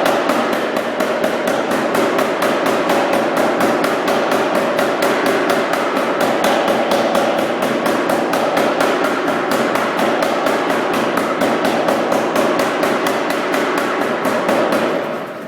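Anyang 55 lb power hammer with flat dies striking hot 2x2-inch steel stock in a rapid, even run of blows. The blows stop shortly before the end, leaving the hammer's motor running.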